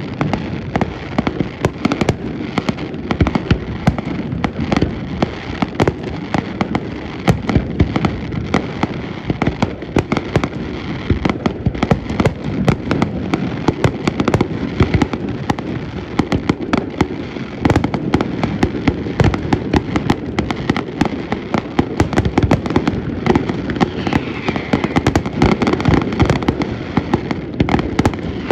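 Aerial fireworks going off in a dense, continuous barrage of bangs and crackling, with no break.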